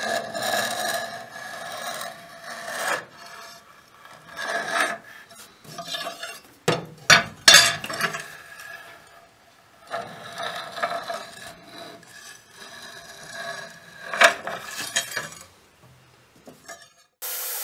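Height gauge scribe scratching lines into the layout fluid on a steel knife blank, the gauge sliding over a granite surface plate: a series of scraping strokes with short pauses between them. Near the end a belt grinder starts up abruptly and runs steadily.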